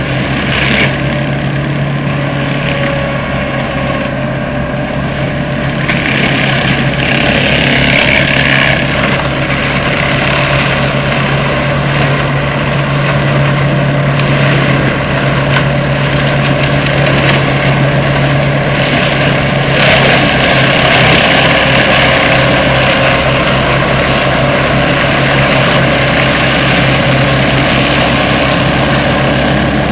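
ASV RC100 tracked skid steer's diesel engine running steadily, driving a Seppi MiniForst hydraulic mulcher head, with a rushing, shredding noise that swells louder twice as the mulcher works.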